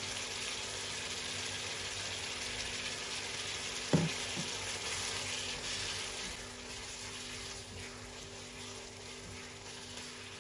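Minced meat and diced tomato sizzling in a frying pan as they are stirred together with a spatula, with one sharp knock about four seconds in. The sizzle eases off over the last few seconds.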